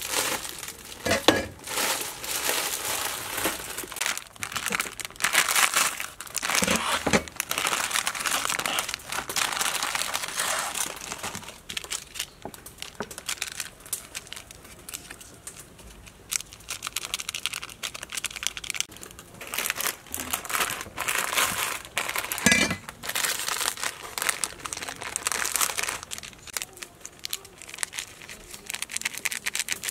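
Plastic wrapping of a Nongshim instant-noodle packet and its seasoning sachets crinkling and tearing as they are opened and handled, in irregular crackles with some quieter stretches.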